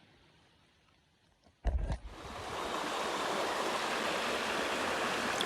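Faint at first, then a brief loud thump about a second and a half in, after which the rushing water of a stream comes up and runs steadily.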